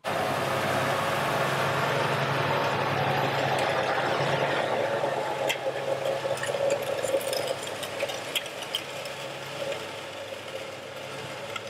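John Deere tractor engine running as it pulls an ExactEmerge planter with its row units in the soil, the planter's row units rattling and clicking. The sound gets quieter in the second half.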